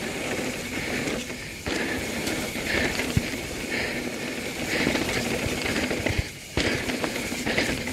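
Mountain bike riding fast down a dirt flow trail: steady tyre rumble and wind rush over the on-bike microphone, with scattered knocks from the bike. Twice the noise dips briefly and then comes back suddenly.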